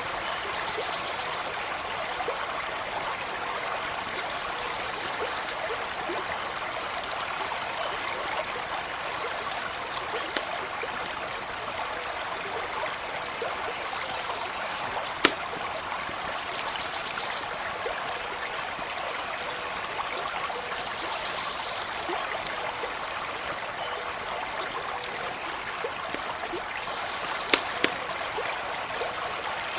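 Stream running steadily, with a few sharp pops of a crackling campfire over it, the loudest about halfway through and two more close together near the end.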